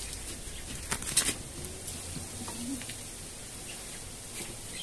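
Hands working potting soil and a begonia in a plant pot: soft rustling with a quick cluster of short crackly scrapes about a second in and a few fainter ones later.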